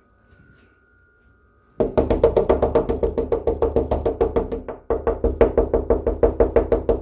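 Rapid, loud knocking, about seven or eight hard strikes a second. It starts about two seconds in, with a short break just before the five-second mark, then carries on.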